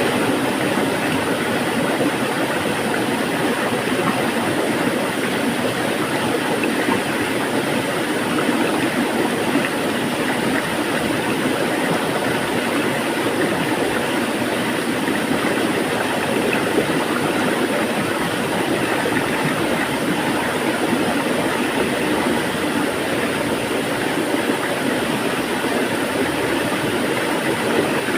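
Water flowing, a steady, even rushing with no breaks.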